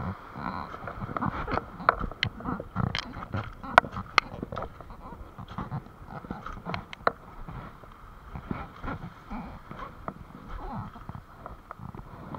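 Beach pebbles clacking and crunching in irregular sharp clicks as someone walks and crouches on a shingle beach. The clicks are thickest in the first half and thin out later.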